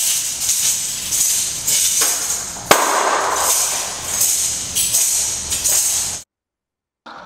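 Shaken jingling percussion pulsing in a steady rhythm about twice a second, with one sharp crack a little under three seconds in. It stops abruptly about a second before the end.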